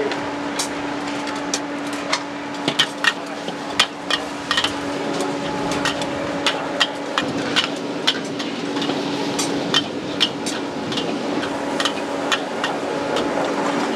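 Metal spatula and ladle clanking irregularly against a wok as noodles are stir-fried over a charcoal fire, over steady sizzling and a constant low hum.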